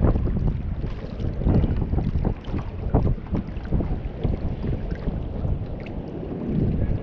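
Wind buffeting the microphone in uneven low gusts, with small waves lapping around a sit-on-top kayak.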